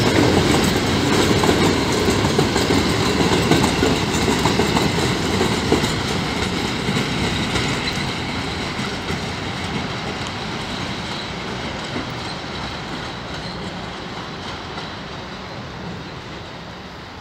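Freight train of Talbot self-discharging hopper wagons rolling by, wheels clicking over the rail joints, the sound fading steadily as the wagons move away.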